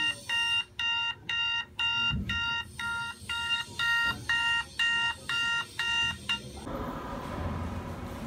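Alarm clock beeping, a bright electronic beep repeating evenly about two and a half times a second. It stops about six and a half seconds in.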